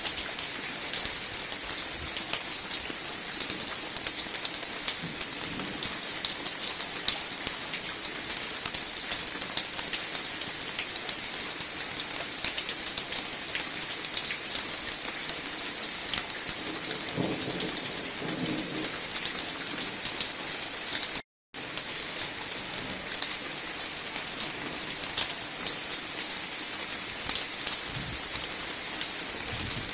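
Steady rain falling, an even hiss full of the dense ticking of drops. It cuts out for a moment about two-thirds of the way in.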